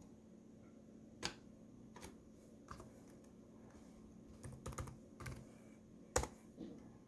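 Scattered clicks and taps, like keys and a mouse on a computer, with a quick cluster of several about four and a half to five seconds in and the loudest single click about six seconds in.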